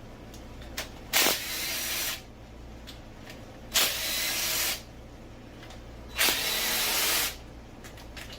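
Power wrench run in three short bursts of about a second each, spaced about two and a half seconds apart, with a hissy sound, as bolts are loosened while taking the cylinder head off a 1991 Honda Civic.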